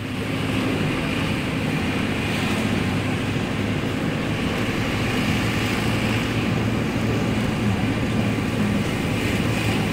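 Car engine and tyre noise heard from inside the cabin of a vehicle driving up a hill road: a steady low hum with road rush.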